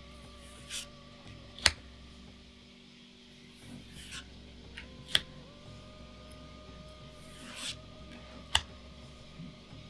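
Trading cards being revealed one at a time. Three times, a short swish of a card sliding off the stack is followed by a sharp snap as it is laid down or flicked, about three and a half seconds apart.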